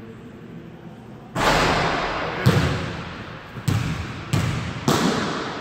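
A basketball hits the hoop about a second and a half in, then bounces about four times on the hardwood court, the bounces coming closer together. Each impact echoes around the large gym hall.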